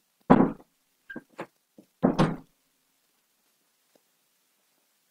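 Two heavy thumps about two seconds apart, with three lighter knocks between them, in a small room.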